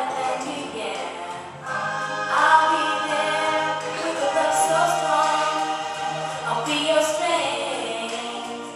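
A praise song: sung vocals with choir-style backing over long held bass notes.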